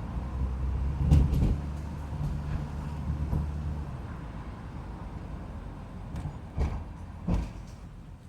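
Vauxhall Royale's 2.8-litre straight-six running at low revs, with a few clunks; the engine note drops away about four seconds in.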